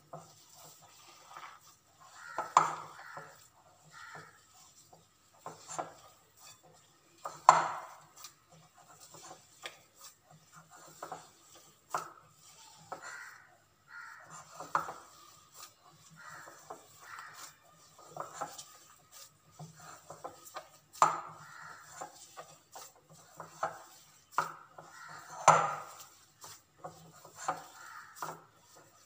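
Hands mixing and kneading mashed boiled potato with spices and cornstarch in a glass bowl: soft rubbing with irregular knocks and clinks against the glass, about one every second or two. The sharpest knocks come about a quarter of the way in and again near the end.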